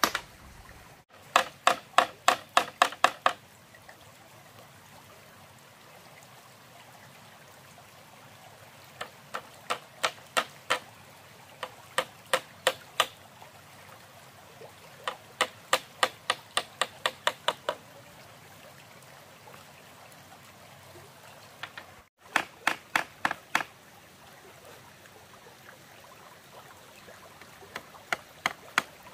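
A hammer tapping bamboo slats onto a wooden frame in quick runs of sharp strikes, about four a second, with pauses between the runs. Underneath is the steady rush of a shallow stream.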